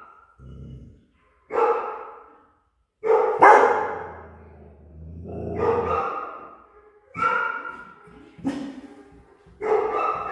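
A young mixed-breed dog barking at a person, about six barks spaced a second or two apart, the loudest about three seconds in. This is fear-aggressive barking from a dog that came in for fear aggression.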